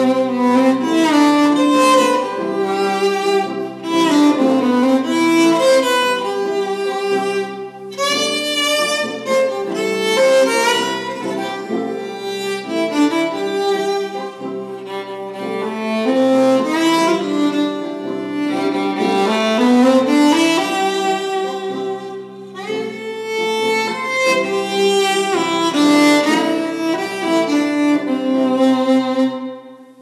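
Solo violin playing a melody, often sounding two notes at once, with some sliding notes. It stops just before the end.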